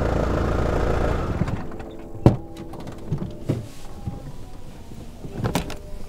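A car's engine running with a steady low rumble, then going quiet about a second in. A few sharp clicks and thunks follow, about two seconds in, near the middle and near the end, like car door handles and doors.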